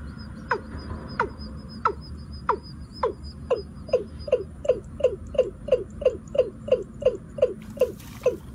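Watercock calling: a series of short, downward-sliding notes, repeating under two a second at first and speeding up to about three a second from about three seconds in.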